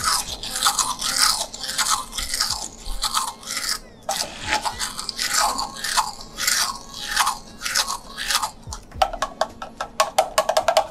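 Hand-held immersion blender running in a stainless steel pan of avocado purée and olive oil, surging in repeated pulses as it is worked through the mixture to emulsify an avocado mousse. Near the end comes a rapid run of sharp clicks.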